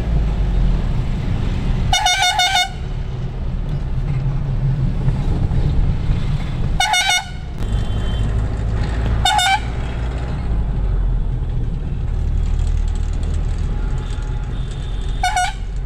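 Vehicle horn honking four times in short, pulsing blasts, the first the longest, over the steady engine and road rumble heard from inside a moving vehicle's cab in traffic.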